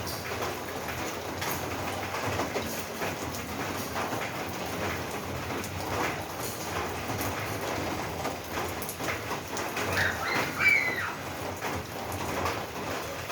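Rain falling steadily on a roof: an even hiss with the separate ticks of individual drops. A bird chirps briefly about ten seconds in.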